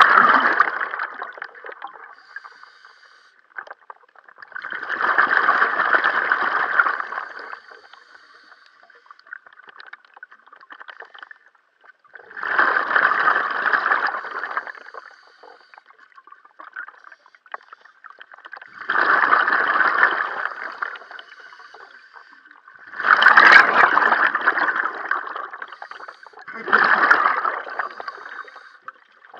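A scuba diver's exhaled breath bubbling out of the regulator, heard underwater. Six gurgling bursts of about two seconds each come every few seconds, with quiet in between.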